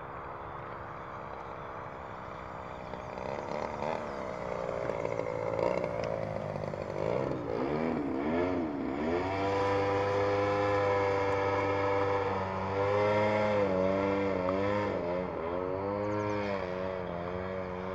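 Radio-controlled aerobatic model airplane's motor and propeller droning overhead, its pitch swooping down and back up several times as it climbs, dives and rolls through manoeuvres. It grows louder from about three seconds in as the plane comes closer.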